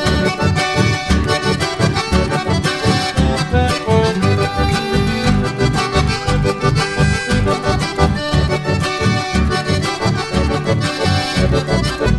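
Instrumental background music with a quick, steady beat and a melody over it.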